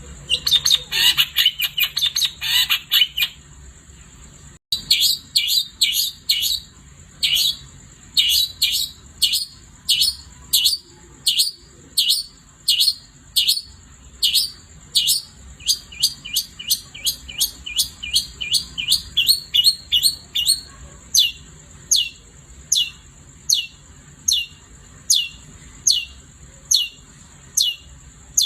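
Long-tailed shrike (cendet) singing: a fast, dense chattering burst for about three seconds, then, after a brief break, a long series of short, sharp, falling call notes at about two a second.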